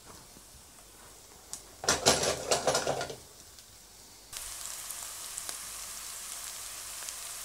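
Sliced button mushrooms in a frying pan with onions and garlic: a short burst of stirring about two seconds in, then from about four seconds a steady sizzle as they fry over high heat, driving off their moisture to brown.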